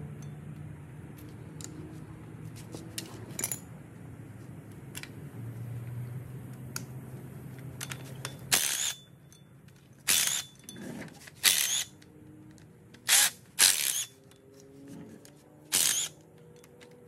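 A cordless impact driver runs in about six short bursts in the second half, spinning out the bolts that hold the Mitchell overdrive to a Ford Model A differential. Before that come light metallic clicks of the lacing wire being worked off the bolt heads, over a steady low hum.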